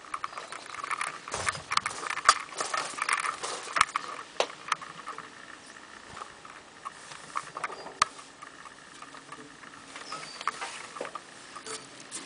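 Footsteps crunching on railroad track ballast, irregular and busiest in the first few seconds, with a few sharp knocks of hands and shoes against a freight car's steel grab irons and steps.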